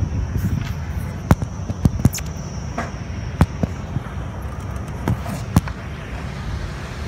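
A scattering of sharp clicks and knocks, about seven of them at uneven gaps, over a steady low rumble.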